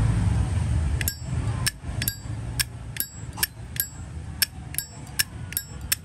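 Zippo lighter's lid flicked open and snapped shut over and over: about a dozen sharp metallic clicks with a bright ring, roughly two a second, starting about a second in. A low rumble fills the first second.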